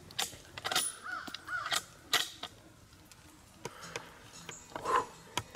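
Crows cawing, a string of short harsh calls in the first couple of seconds and a few more near the end.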